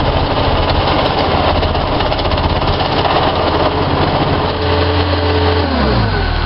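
Skid steer loader's engine running and driving an Allied 9700 hydraulic plate compactor, the plate vibrating on gravel. Near the end the pitch falls as the machine winds down.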